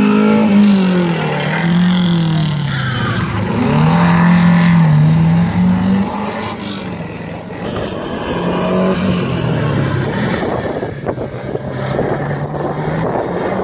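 Rally car engine running hard, its pitch falling and rising again and again as it revs up and down through the gears.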